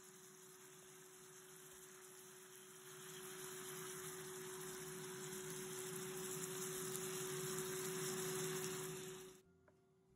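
Beef simmering and sizzling in its gravy in an electric skillet on high heat, stirred with a silicone spatula: a steady hiss that grows louder, then cuts off suddenly near the end, over a faint steady hum.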